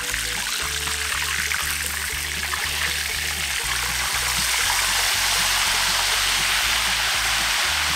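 Whole chicken deep-frying in oil in a cast iron pot: a steady bubbling sizzle that grows louder about halfway through, after the chicken has been turned. Background music with a steady bass line plays underneath.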